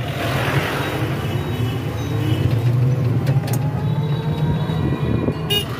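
Steady road rumble heard while riding in an open electric rickshaw (toto) through town traffic, with short vehicle horn toots a few times, the sharpest near the end.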